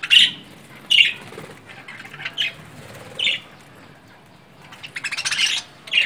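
A flock of budgerigars calling: single short squawks every second or so, then a burst of rapid chattering about five seconds in.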